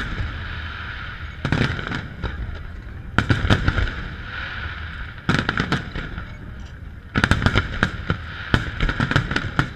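Aerial fireworks shells bursting in clusters of rapid sharp bangs, four runs of reports a second or two apart, the longest and densest near the end.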